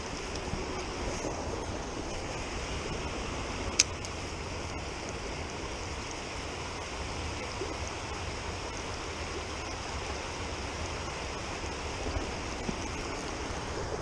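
Creek water running steadily, an even rushing noise with a low rumble beneath it. A single sharp click sounds a little under four seconds in.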